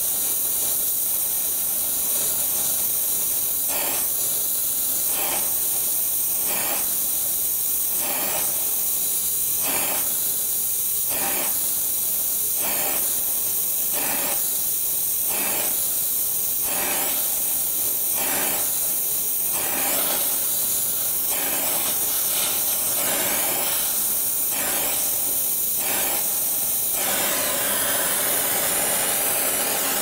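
Gas brazing torch flame hissing steadily against a copper pipe joint during silver brazing, the hiss swelling briefly about every second and a half. Near the end the surges stop and the hiss turns steady.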